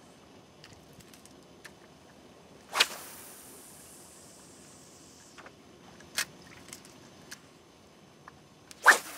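Two sharp swishes of a spinning rod whipped through the air, about three seconds in and again near the end, each trailing off in a fading hiss; the last and loudest comes as the lure is cast. There are a few faint clicks and a smaller swish between them.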